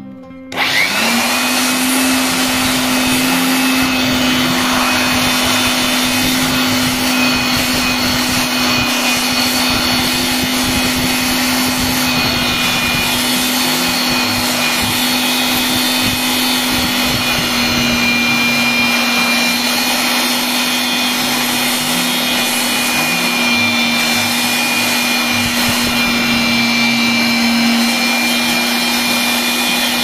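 Electric hand blower switched on about half a second in, spinning up and then running steadily with a motor whine and a rush of air. Its nozzle is blowing through a vacuum cleaner's pleated HEPA filter to clear the dust.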